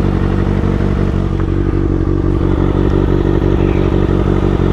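2015 Kawasaki ZX-6R 636's inline-four engine idling steadily through a Racefit aftermarket exhaust, with an even, unchanging pitch.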